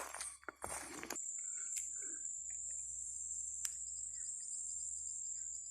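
A few footsteps on a bush track, stopping about a second in, then a steady high-pitched insect buzz with a couple of faint clicks.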